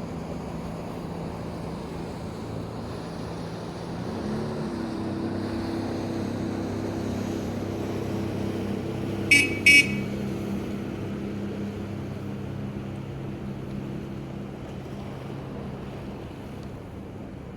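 Engine running steadily, its pitch and level stepping up about four seconds in, with two quick high-pitched beeps about halfway through.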